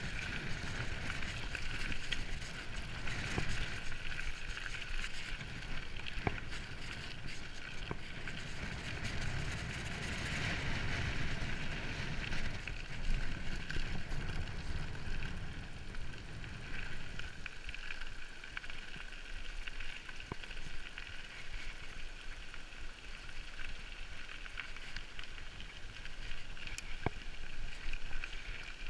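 Wind rushing over an action camera's microphone, with tyre rumble from a mountain bike rolling fast downhill and scattered clicks and rattles from the bike. The low rumble eases off about two-thirds of the way through.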